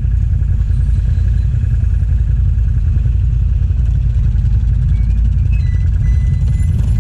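ATV engines running at low trail speed, a loud steady low rumble from the rider's own quad and the four-wheelers and side-by-sides idling past.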